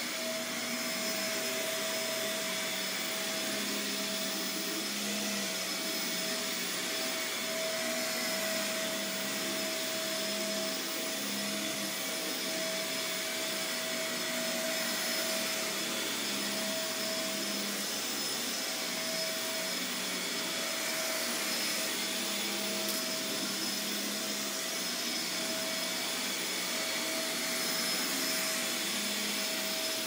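Shark Navigator upright vacuum cleaner running steadily while being pushed over carpet: a continuous rush of air with a steady motor whine.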